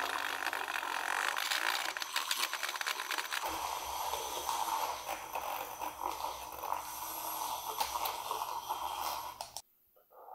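Handheld battery milk frother whisking cream in a glass jug: a steady whirring with a wet, frothy rushing noise. The sound shifts and gains a low hum about three and a half seconds in, then stops abruptly near the end.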